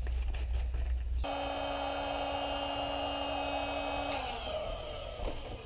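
Electric air pump inflating an air mattress: a steady motor whine with a hum, which stops about four seconds in, its pitch falling briefly as it spins down. A low rumble comes before it in the first second.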